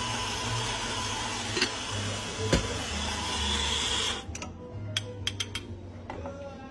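Espresso grinder running with a steady whirring hiss as it grinds into a portafilter, cutting off about four seconds in. After it stops come a few light clicks and knocks as the portafilter is handled, over background music.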